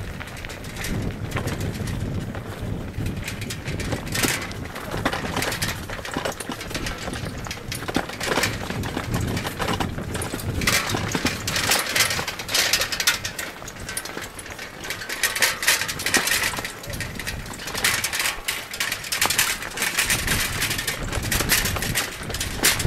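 Mountain bike rattling and clattering down a rocky dirt trail: tyres crunching over stones and gravel, with many irregular metallic clicks and knocks from the bike over a constant rumble.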